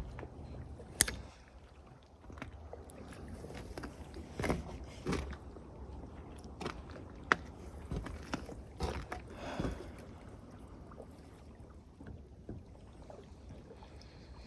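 Fishing tackle being handled while a hook is rebaited: scattered small clicks and rustles, with two sharp clicks about a second in and about seven seconds in, over water lapping at the shore.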